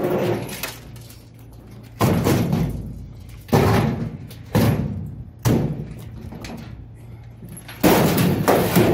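A scrap clothes dryer's sheet-metal cabinet banging and rattling as it is tipped and shaken to empty loose coins from inside. About six or seven separate knocks come, each followed by a rattling, ringing tail.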